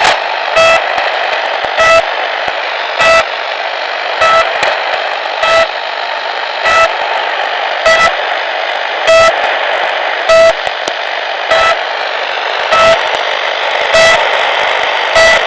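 The Pip, a Russian shortwave marker station on 5448 kHz, received on a shortwave radio: short, sharp beeps repeating evenly about every 1.2 seconds over a steady hiss of band static.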